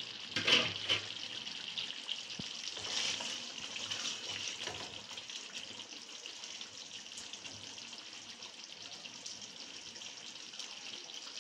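Beef-and-potato curry gravy simmering in an open wok, a steady bubbling hiss, with a brief clatter about half a second in and a few soft spoon knocks against the pan.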